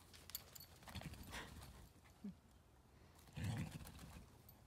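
A horse getting up from a roll on grass and stepping off, heard faintly, with scattered rustles and a short, louder burst of sound about three and a half seconds in.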